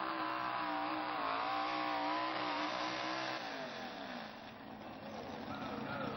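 Super Pro mud-bogging truck's engine running at high revs, its pitch wavering as it works through the mud. About three and a half seconds in the revs fall away and the sound drops in level, then they pick up again near the end.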